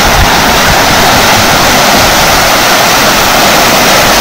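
Fast-flowing floodwater of the Ghaghra river rushing and churning along the bank, a loud, steady roar of water.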